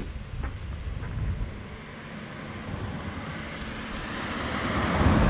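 A passing road vehicle, a low rumble with hiss that grows louder to a peak at the very end, mixed with wind noise on the microphone.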